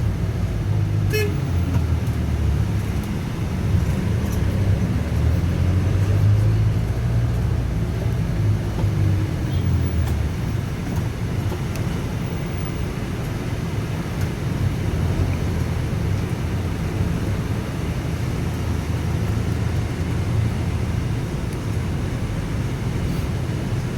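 Steady engine rumble and road noise of a moving motor vehicle.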